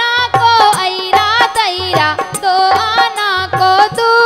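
Woman singing a Bundelkhandi folk devotional song (Kartik geet) through a microphone, accompanied by harmonium and a dholak keeping a steady beat of about two strokes a second.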